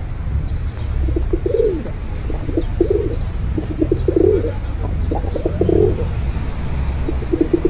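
Feral pigeons cooing, a series of about five throaty, pulsing coos about a second apart, over a steady low rumble.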